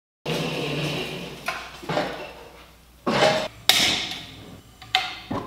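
A handful of sharp metallic clicks and clanks, a second or so apart, as a standing patio heater's controls are worked by hand, after a brief steady rushing noise at the start.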